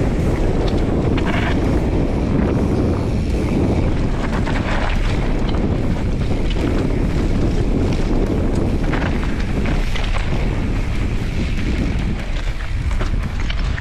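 Wind buffeting the microphone of a camera on a moving bicycle: a steady, heavy rumble. Scattered knocks and crackles come from the tyres rolling over a rough gravel path.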